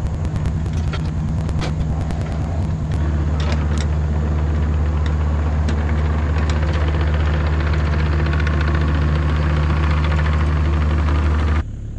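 Volvo EC35C mini excavator's diesel engine running steadily, with several sharp knocks in the first few seconds. The engine sound cuts off abruptly near the end.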